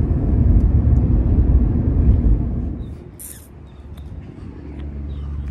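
Car cabin road and engine noise while driving, a loud low rumble that cuts off about three seconds in. After a brief hiss, a quieter steady low hum follows.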